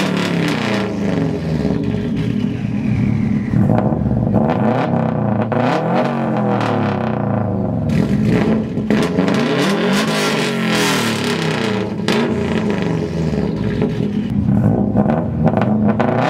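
Turbocharged Subaru flat-four engines on a straight-piped WRX and a built STI being revved hard through their aftermarket exhausts, the pitch rising and falling again and again.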